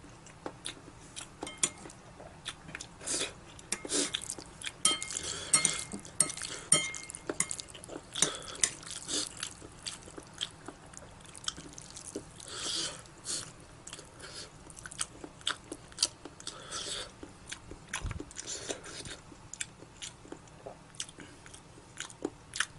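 A person eating noodles close to the microphone: chewing and mouth smacks with many short clicks, and a few brief slurps.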